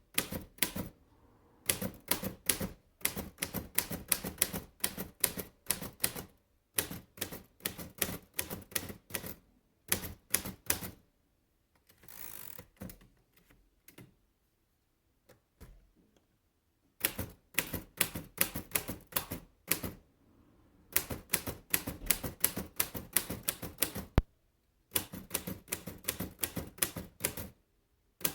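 1937 Royal De Luxe Model A portable typewriter being typed on in runs of quick, sharp key strikes, several a second, with short pauses between the runs. A brief rasp comes near the middle, followed by a few seconds' pause.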